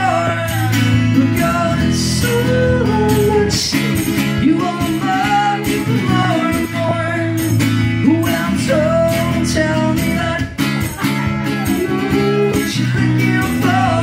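A man singing to his own strummed acoustic guitar, the strumming steady throughout.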